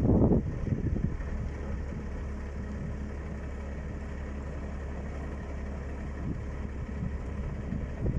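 A vehicle engine running with a steady low rumble, with gusts of wind buffeting the microphone in the first half-second.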